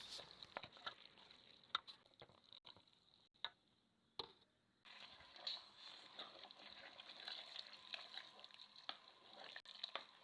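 Faint kitchen handling sounds: scattered light clicks and scrapes of utensils and cookware, broken by a second or so of dead silence a few seconds in.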